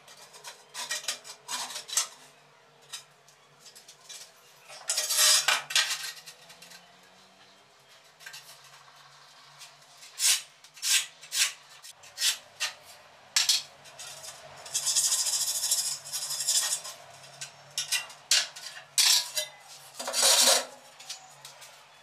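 Steel trowel scraping and clinking against a wooden mortar board and ceramic tiles while cement mortar is picked up and spread: scattered sharp taps and clinks, with longer scrapes about five seconds in, around fifteen seconds and again near twenty seconds.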